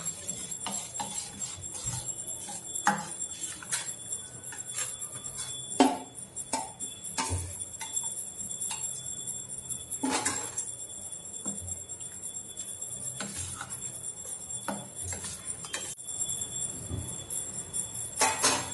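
Steel spoon clinking and scraping against a steel bowl and a steel plate while ground peanuts are scooped out, with bangles jingling at the wrist. Short, sharp clinks come irregularly all through, the loudest about six and ten seconds in.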